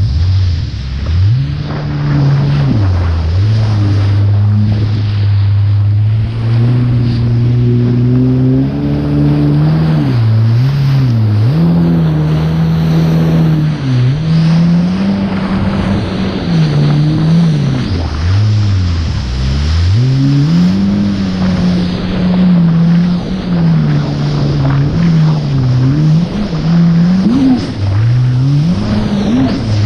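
Jet ski engine running at speed, its pitch rising and falling several times as the throttle is opened and eased, dropping lowest about two-thirds through. Under it runs the steady rush of water spray and wind.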